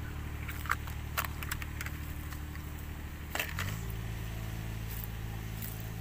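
A small engine running steadily, its pitch gliding up to a higher speed about three and a half seconds in, with scattered light crunching footsteps.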